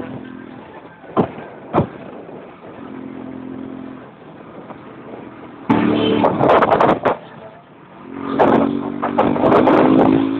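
Vehicle engine running while driving, with wind and road noise. It swells louder for about a second around six seconds in and again over the last two seconds, with a couple of sharp clicks early on.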